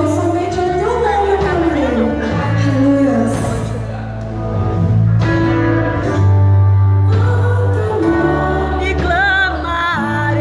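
Live Christian worship music: a singer's melody, wavering toward the end, over held bass notes that change every second or two.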